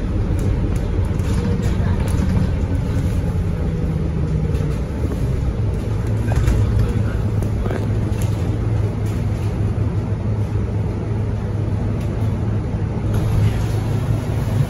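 Scania K230UB single-deck bus heard from inside the cabin while driving: its diesel engine drones steadily under road noise and small rattles, and the engine note shifts lower about five seconds in.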